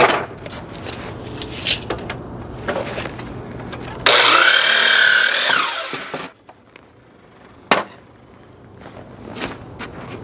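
DeWalt sliding compound miter saw starting with a sudden loud whine about four seconds in, cutting through a wooden 2x2 for under two seconds, then winding down. Lumber knocks and clatters before the cut, and one sharp knock a couple of seconds after it.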